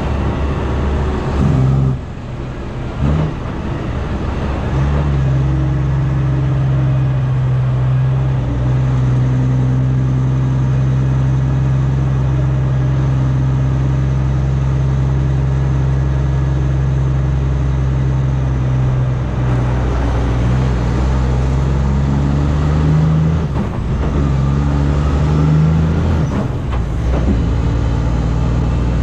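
Heavy-haul truck's diesel engine running steadily under load, its pitch breaking briefly about two seconds in and shifting several times in the last third, as with gear changes.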